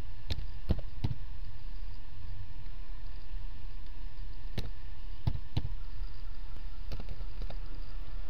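Computer keyboard keys struck one at a time, separate clicks at an uneven pace: three quick ones at the start, then a scattered run in the second half. A steady low hum lies under them throughout.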